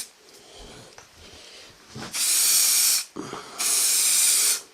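Aerosol can spraying primer onto a repaired motorcycle mudguard in two short bursts, each about a second long, the second starting about half a second after the first ends.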